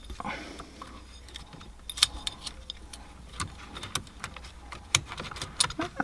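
Scattered small clicks and rattles of plastic parts and wiring being handled and pushed into the steering column's clock spring housing, a few sharper clicks standing out.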